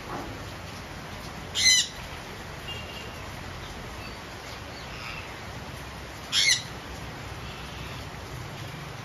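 Indian ringneck parakeets giving two short, harsh squawks about five seconds apart, with a few faint chirps between, over a steady hiss of falling rain.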